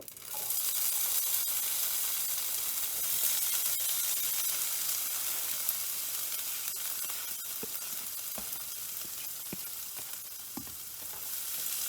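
Chopped bell peppers sizzling in a hot pan. The sizzle starts suddenly as they go in and then holds steady, with a few faint clicks from stirring.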